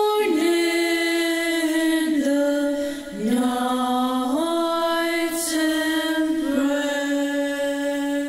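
Small mixed-voice choir (soprano, alto, tenor and bass) singing a Christmas carol a cappella in close harmony. The voices move together through several slow chord changes and settle on a long held final chord near the end, which fades out.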